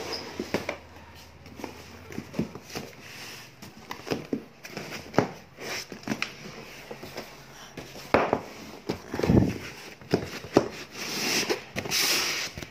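Cardboard box and packaging being handled and opened: a string of knocks, clicks and scrapes, with a longer stretch of rustling near the end.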